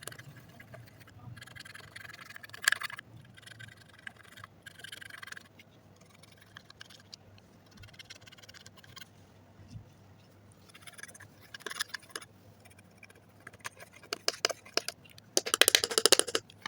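Slime being worked by hand, with irregular sticky crackles and little pops throughout and a dense burst of crackling near the end.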